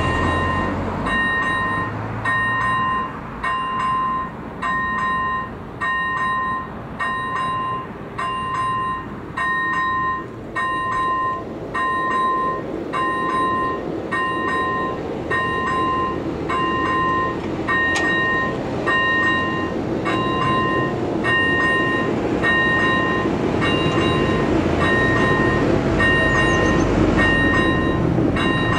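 Electronic warning bell (AŽD ZV01) of a Czech level crossing, ringing a clear ding about once a second from the moment the warning lights start flashing. A low rumble builds underneath it toward the end.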